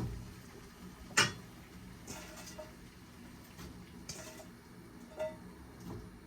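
Dishes and utensils being handled: a series of light clinks and knocks, with one sharper knock about a second in.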